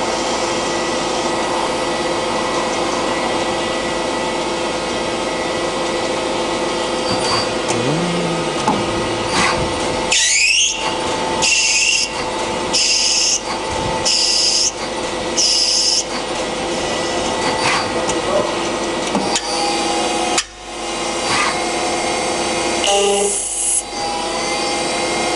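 Mazak Quick Turn QT-6T CNC lathe running a machining cycle: a steady machine hum with fixed tones. About ten seconds in there is a rising sweep, then five short high hissing bursts about a second apart, and a few more near the end.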